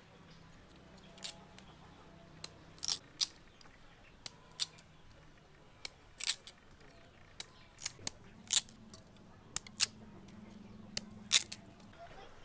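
A knife blade cutting the skin off a raw sweet potato: a series of short, sharp scraping strokes at irregular intervals.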